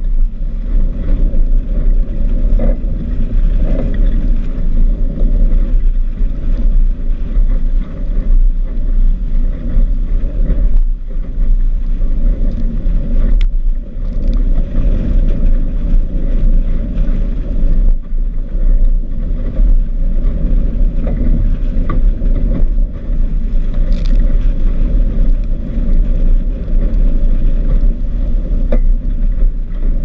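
Strong wind buffeting the camera's microphone as a loud, steady low rumble, with water rushing and splashing along a Sunfish sailboat's hull as it sails fast in heavy wind.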